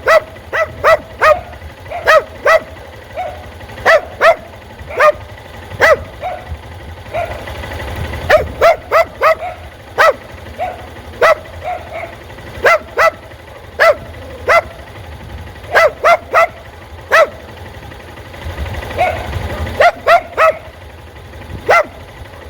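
A dog barking over and over in quick bursts of two to four sharp barks, with short pauses between bursts. A low rumble swells underneath twice.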